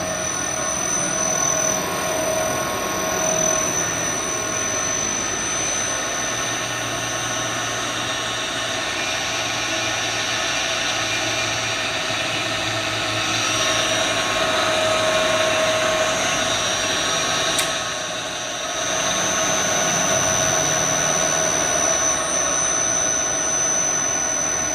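Electric motor running off a freshly repaired LS iG5A variable-frequency drive on test: a steady whir with thin high whines over it. About 18 seconds in there is a click and the sound dips briefly before picking up again.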